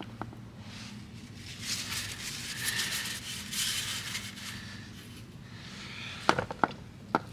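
Light rustling and handling as gloved hands tuck paper towels around a motorcycle's oil filter mount, with a few sharp clicks near the end over a faint steady hum.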